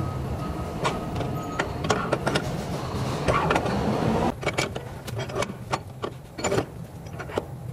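Metal tools clicking and knocking against a truck's leaf spring hanger during leaf spring bushing work, over a steady low mechanical hum. A louder whirring buzz starts about three seconds in and stops just after four seconds.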